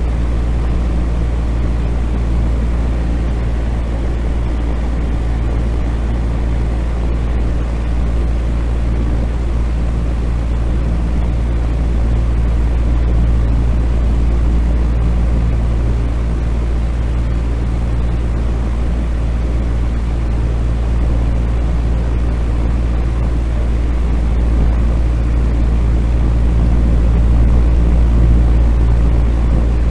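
Electric fan running steadily: a constant low hum under an even rush of moving air, with no change in speed.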